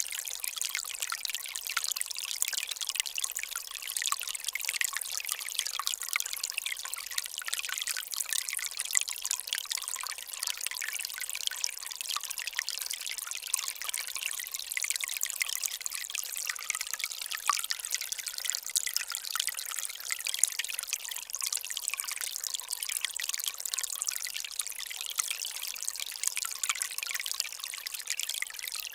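Water running steadily, a continuous splashing trickle with no deep rumble beneath it.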